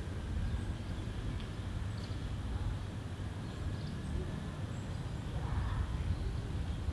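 Outdoor ambience: a steady low rumble with a few faint, brief high-pitched sounds scattered through it.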